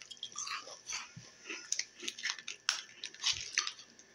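Two people biting and chewing crunchy peanut butter sandwich crackers: an irregular run of short, sharp crunches.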